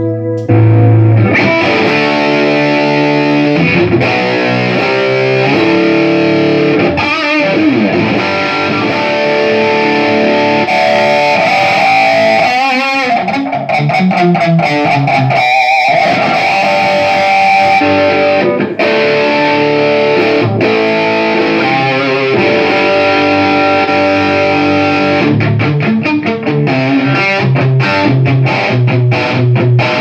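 Electric guitar played through a Line 6 Flextone III XL 2x12 modelling combo amp: chords and held notes, with wavering bent notes around the middle. The volume holds even throughout, as it should after the amp's pots were cleaned and resoldered to cure dropping volume.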